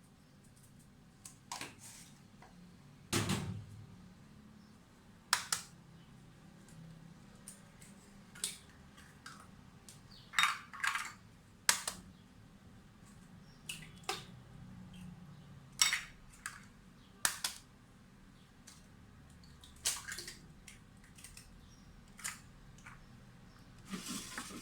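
Scattered short clicks and knocks of eggs, shells and kitchen ware as eggs are cracked into a mixer jug, about a dozen separate taps with the loudest about three seconds in.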